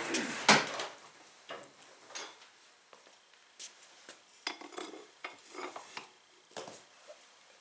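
Metal tools clinking and clanking on a Honda 300EX's axle nut as it is worked loose, with a sharp clank about half a second in, then scattered lighter clinks.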